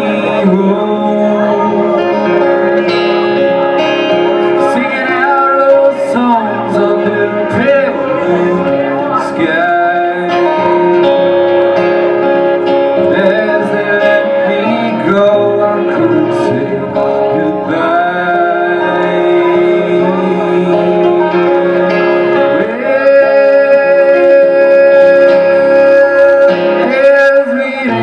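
Live song with guitar accompaniment and a singing voice gliding between long sustained notes, holding one long note near the end.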